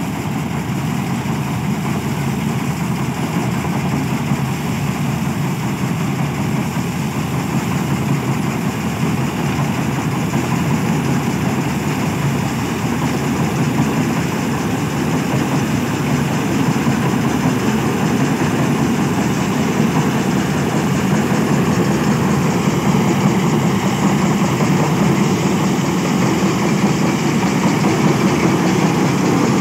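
Eicher 557 tractor's diesel engine running steadily as it drives a tractor-mounted harvester through the crop, the sound slowly growing louder as the machine comes closer.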